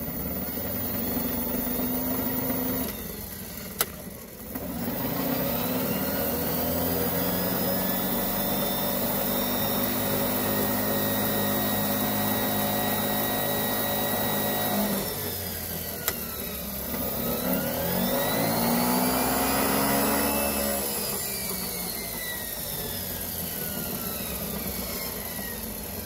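1998 Club Car DS golf cart's GE electric drive motor and rear transaxle running under power, a whine that rises in pitch as it speeds up, stops briefly, then spins up twice more and winds down with a falling whine, with a couple of sharp clicks between runs. With the motor splines freshly greased it sounds a whole lot better, but still has some gear-train noise.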